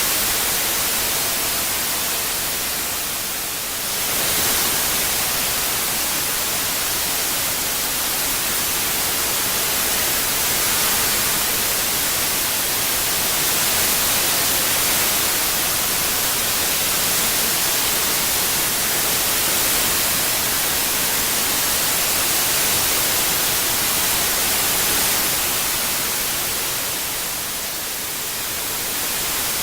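Steady white noise, an even hiss brightest in the high frequencies, dipping slightly in loudness near the start and again near the end.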